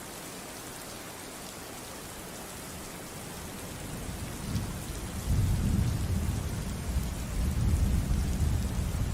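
Steady rain falling, with a low rumble of thunder that swells about four seconds in and rolls on loudly to the end.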